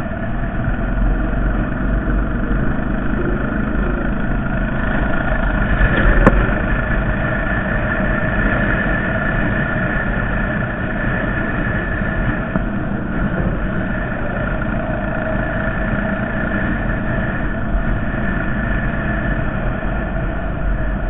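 Honda Foreman 450 ATV's single-cylinder engine running steadily, with one sharp click about six seconds in.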